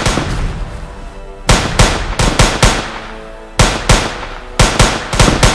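Handgun gunshots fired in two rapid volleys, about five shots starting a second and a half in and about eight more starting just past halfway. A tense film score plays underneath.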